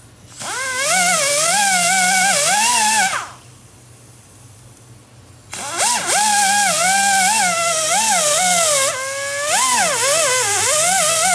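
Handheld power tool cutting the rubber lugs off a lawnmower tire, its motor whine wavering in pitch as it cuts. It runs about three seconds, stops, then starts again about two seconds later and runs on.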